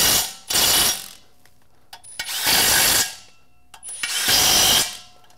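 Cordless impact wrench hammering flex plate bolts tight, in four bursts of about half a second to a second each, with small metallic clicks between them.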